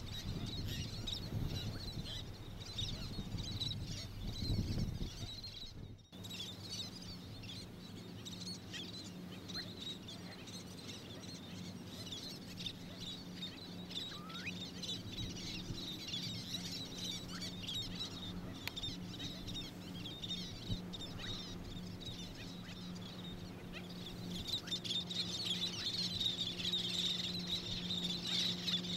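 Many small birds chirping busily and high, getting louder and denser near the end. A low rumble in the first few seconds gives way, after a short break, to a steady low hum.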